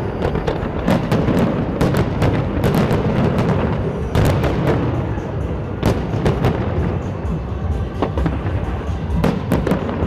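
Fireworks display: many shells bursting in quick, irregular succession, sharp bangs and crackles over a continuous low rumble, with music playing underneath.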